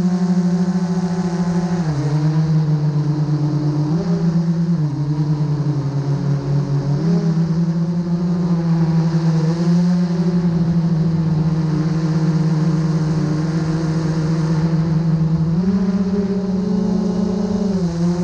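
GoPro Karma quadcopter's motors and propellers humming steadily, heard close up from the drone's own camera. The pitch steps up and down every few seconds as the motor speed changes.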